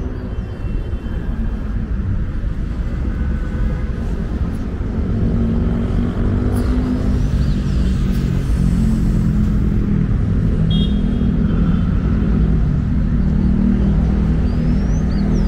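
City road traffic: the engines of passing cars and buses rumbling steadily, a little louder in the second half.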